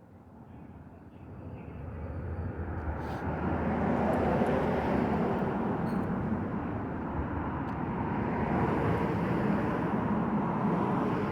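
Vehicle rumble with a low hum, swelling over the first few seconds and then holding steady.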